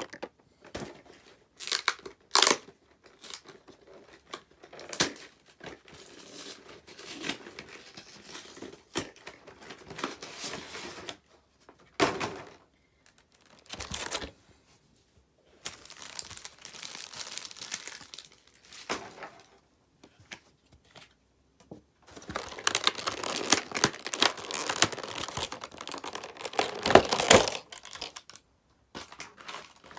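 Packaging of a Pokémon trading-card collection box being opened and handled: crinkling and tearing, with scattered clicks and a longer, busier stretch of rustling about three-quarters of the way through.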